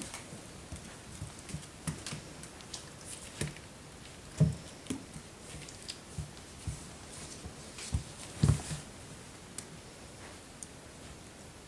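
Scattered light taps and a few thuds, irregular, from a puppy playing with a plastic toy ball on a laminate floor: paws, claws and the ball knocking on the boards.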